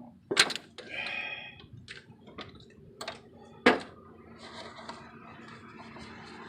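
Metal hand tools clinking and knocking against the car's transmission while the reverse light switch is worked loose. A few sharp clinks, the loudest about half a second in and again near the middle, with a brief rattle about a second in.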